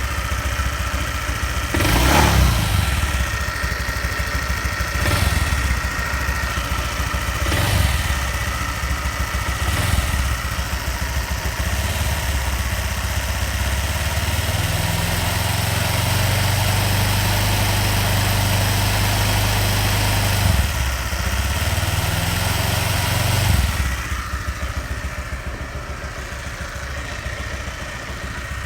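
Honda Vario 150 scooter's single-cylinder engine and CVT idling, blipped four times, then held at higher revs for about ten seconds before dropping back to idle. Through it runs a growling ('ngorok') noise that persists even after the sliding sheave, rollers and roller housing were replaced; its cause is unknown to the owner.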